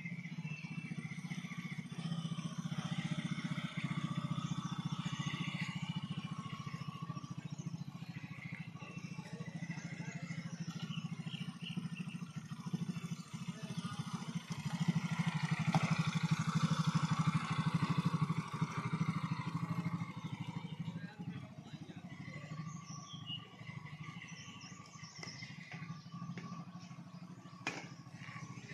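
Motorcycle engine running at low revs; it gets louder for a few seconds around the middle, then eases off.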